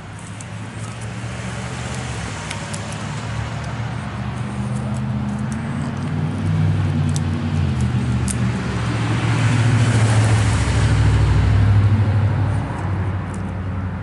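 A road vehicle approaching and passing, its engine and tyre noise growing louder to a peak about eleven seconds in, then fading.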